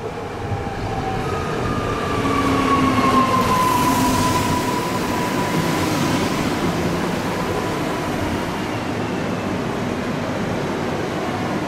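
ED78 electric multiple unit pulling into the platform and slowing to a stop, its wheels rumbling on the rails under a whine from the traction drive. The whine falls in pitch as the train brakes and is loudest as the unit passes, about three to four seconds in.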